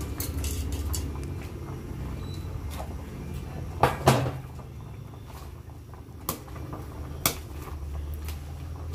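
Metal tongs knocking and scraping against an aluminium cooking pot while pushing kangkong leaves down into the simmering broth: a few sharp clinks, the loudest a close pair about four seconds in, with more around six and seven seconds. A steady low rumble runs underneath.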